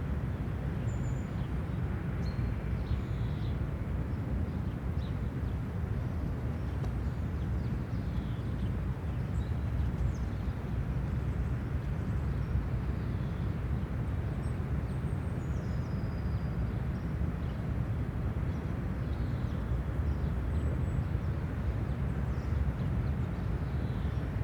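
City park ambience: a steady low rumble of distant traffic, with scattered faint bird chirps above it.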